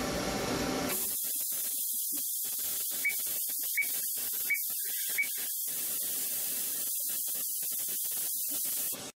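A CNC lathe's running hum stops about a second in, leaving a steady high hiss of compressed air from its air blast. Four short high beeps come evenly spaced, about one every 0.7 seconds, in the middle, and the sound cuts off just before the end.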